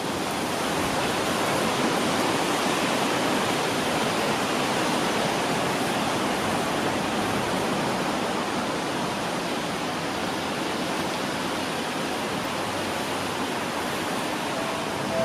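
Steady hiss of falling rain, even and unbroken, with no train passing.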